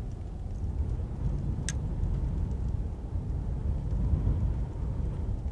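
Wind buffeting the microphone: an uneven low rumble of noise.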